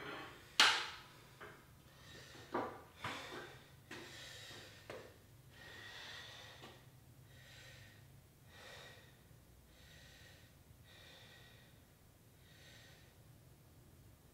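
A person breathing heavily, catching their breath, with slow breaths about every second and a half. A sharp clank comes about half a second in, the loudest sound, followed by a few lighter knocks over the next few seconds.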